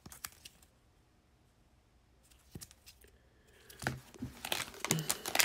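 Hard plastic card holder clicking and tapping as gloved hands handle it and set it down, then from about four seconds in a growing run of rustling and crinkling from plastic packaging.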